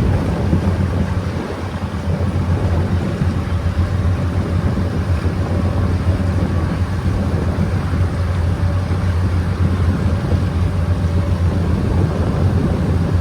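Steady engine drone of a Dubai Creek abra water taxi under way, with wind and water noise over it.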